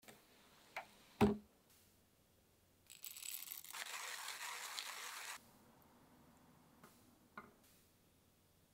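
A sharp knock about a second in, then a zipper on a fabric case being drawn open with a raspy run of about two and a half seconds, and two light clicks near the end.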